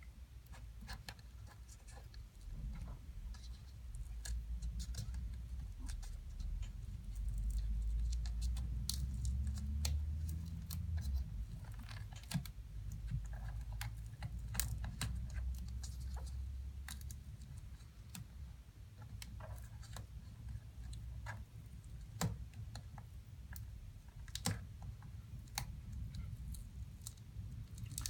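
Scattered small clicks and plastic taps from handling a laptop's display panel and unplugging its screen cable connector, over a low rumble of handling noise that is loudest around the middle.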